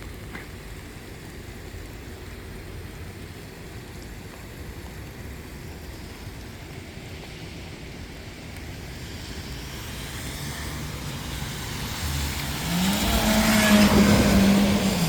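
Low street background, then a motor vehicle approaching and passing close by: its engine note rises and holds, loudest near the end.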